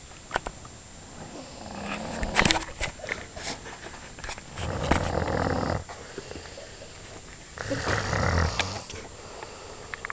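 Snoring in three long breaths about three seconds apart, from a sleeper who is sick. A few sharp clicks sound during the first snore.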